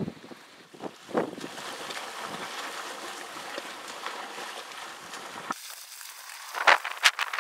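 Wind buffeting the microphone over choppy sea water. About five and a half seconds in, the sound changes abruptly, and a couple of sharp knocks follow near the end.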